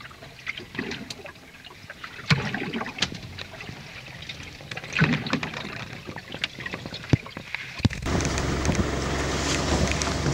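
Creaks and scattered knocks from a wooden sailing lugger's hull below deck as she works in the sea. About eight seconds in, a steady rush of wind and sea takes over.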